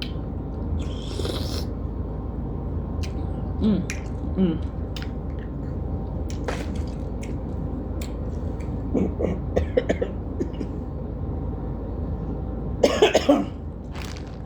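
Eating and handling noises with scattered clicks and a few short mouth sounds, then a quick run of coughs near the end, the loudest sound here, over a steady low hum.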